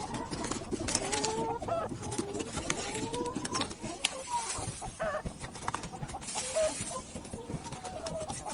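Hens clucking and calling, several short calls overlapping, with frequent sharp clicks and knocks throughout.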